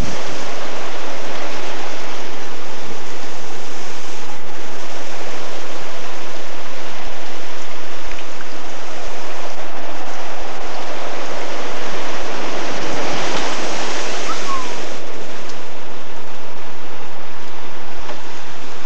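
Nor'easter storm noise: a loud, steady rush of wind and moving floodwater, with wind buffeting the camcorder microphone.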